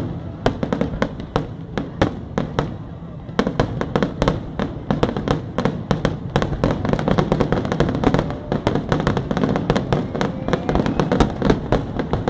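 Aerial firework shells bursting in rapid succession, a continuous barrage of booms and crackles that thickens about three seconds in.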